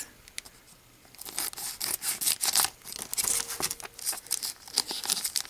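Crinkling and rustling of trading-card pack wrappers being handled, starting about a second in as a dense run of crackles.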